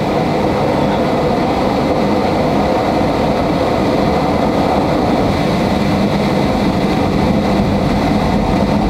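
Steady cabin noise inside a Boeing 737-800 moving slowly on the ground: the CFM56 jet engines running at low power over a continuous rumble.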